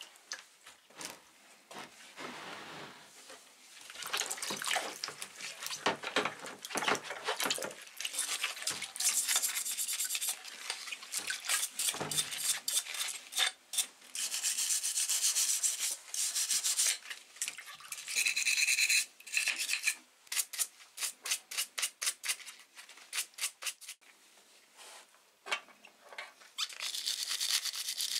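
Hand brushes scrubbing rusty metal blowtorch parts in water, in quick back-and-forth strokes with short pauses; near the end a wire brush works a small part. This is the rust-cleaning stage of a restoration.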